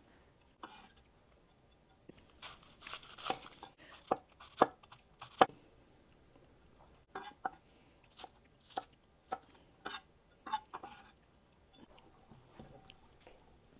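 Kitchen knife chopping vegetables: a series of sharp knocks at an irregular pace, the loudest about four and a half and five and a half seconds in.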